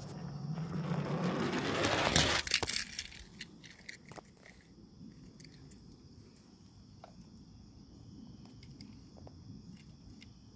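Steady high chirring of crickets with scattered small clicks of a die-cast toy car being handled. In the first two seconds a rush of noise swells, then cuts off suddenly.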